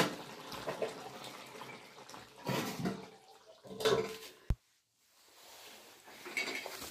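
A few clatters of steel cookware on a gas stove, as a steel plate is set over the chicken curry pan as a lid. About two-thirds of the way through the sound cuts out briefly after a sharp click.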